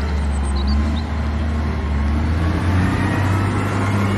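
A vehicle engine running steadily with a deep rumble, its low note stepping up slightly about two and a half seconds in.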